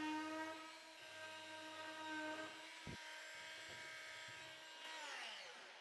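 An electric power tool's motor running with a steady whine, then switched off and spinning down, its pitch falling, near the end. There is a single click about three seconds in.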